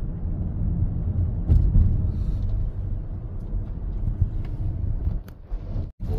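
Steady low rumble of a car's engine and tyres on the road, heard from inside the moving car. The sound cuts out briefly near the end.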